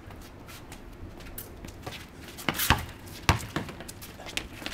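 Basketball bouncing on a concrete driveway court: a few sharp bounces, the two loudest a little past the middle about three quarters of a second apart, followed by lighter knocks.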